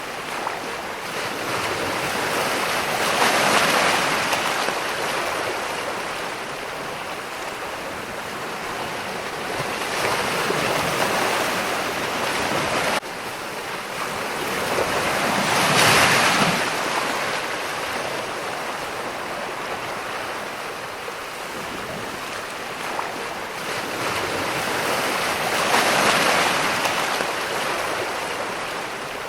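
Ocean waves surging and breaking in a steady wash of surf. Four larger waves swell and fade, and the sound drops suddenly once, about halfway through.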